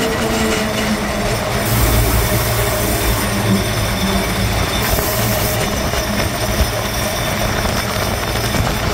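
A vehicle's engine running steadily while it tows an open, metal-railed passenger wagon along a dirt road, with the wagon rattling and bouncing.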